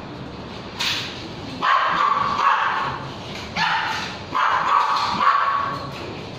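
A puppy giving a short sharp yip, then three drawn-out, fairly high cries of about a second each.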